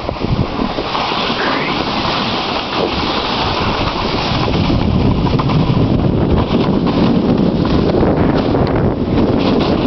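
Wind buffeting the camera's microphone during a fast slide down a snowy slope, over a steady scraping hiss of sliding on packed snow, growing slightly louder.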